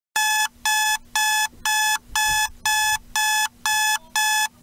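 Digital alarm clock beeping its wake-up alarm: short, shrill electronic beeps, about two a second, nine of them.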